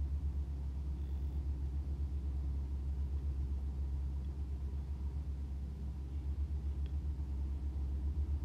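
Kitchen tap running onto a whole chicken held in a plastic basin of water, heard mostly as a steady, fluttering low rumble.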